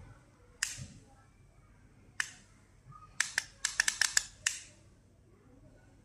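Button clicks on a handheld wireless wall-panel LED remote: a single click, another about a second and a half later, then a quick flurry of about nine clicks in just over a second.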